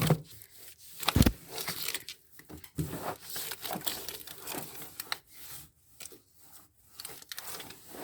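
Damp cloth wiping the inside of a fridge: irregular rustling and rubbing with a few light knocks, the loudest a thump about a second in.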